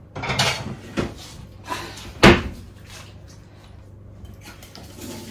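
Several knocks and clatters as a plate is taken out of a low kitchen cupboard, the loudest knock, the cupboard door shutting, coming a little over two seconds in.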